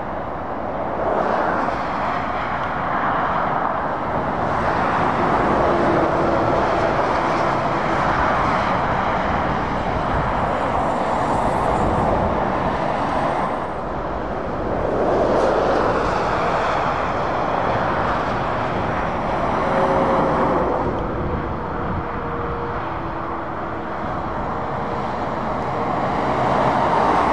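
Road traffic: lorries and cars driving past on a main road, the tyre and engine noise swelling as each vehicle nears and easing again, several times over, and loud again near the end.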